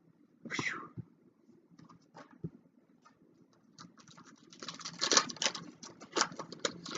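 Handling of a Yu-Gi-Oh trading-card booster pack: a brief rustle, a few soft clicks, then a dense run of small crackles and clicks in the last couple of seconds, typical of the foil wrapper crinkling and the cards being slid out.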